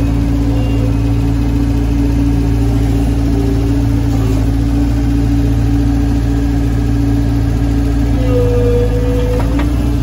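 Gehl skid steer engine running steadily as the loader lowers a round hay bale, with a brief higher whine near the end.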